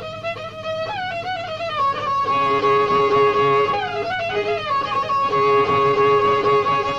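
Violin playing an instrumental passage of Kurdish folk music: a melody of long held notes with slides and ornaments. A lower line of held notes comes in underneath about two seconds in.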